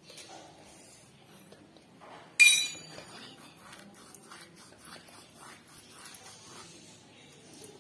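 Hands mixing dry flour in an aluminium bowl, a faint rustling with small ticks, broken once about two and a half seconds in by a sharp metallic clink that rings briefly, the bowl knocked.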